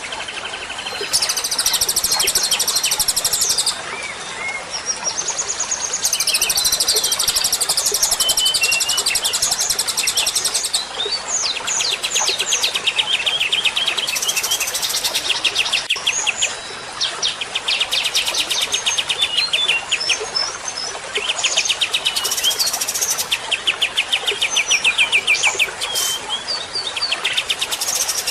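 Songbird song from a bird-training ('masteran') recording: rapid high trills of evenly repeated notes alternating with short chirps and whistles, in phrases that start and stop abruptly.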